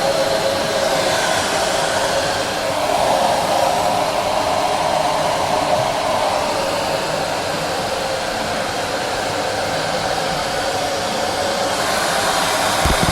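Repronizer hair dryer running steadily: a continuous rush of blown air with a hum strongest in the middle range, swelling and easing slightly. Near the end the rush turns brighter and a few low thumps of air come in.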